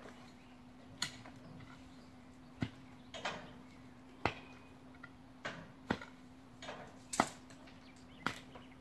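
Irregular sharp knocks and clicks, about nine of them, from hand tools at work on miniature railway track, over a steady faint hum.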